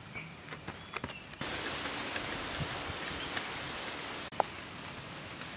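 Steady hiss of rain falling, louder through the middle, with a few soft pats and ticks of wet hands on rice batter in the first second or so and a single sharp click a little past four seconds.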